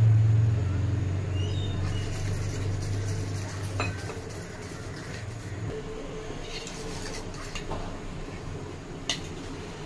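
A fork whisking flour and water into a thin batter in a steel bowl, scraping and clinking against the metal, with a sharper clink near the end. Under it a low hum fades out about halfway.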